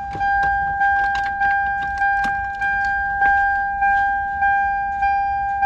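A steady high electronic buzzer tone from the vehicle's electrics, with a sharp rhythmic click about every 0.6 s like a flasher relay cycling the lights.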